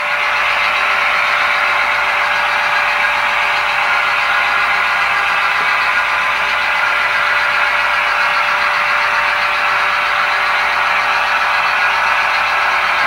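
Model diesel locomotive's sound decoder playing a steady diesel engine sound through its small speaker as the GP10 consist runs, with light rolling noise from the wheels on the track.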